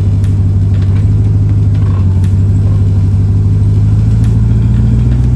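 Ram TRX's supercharged 6.2-litre V8 running at low speed while crawling over rocks, its pitch rising gradually from about three and a half seconds in as the engine revs up.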